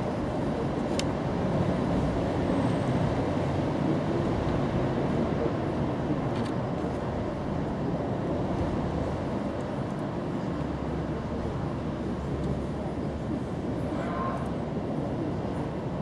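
Steady low rumbling background noise outdoors, without a clear single source.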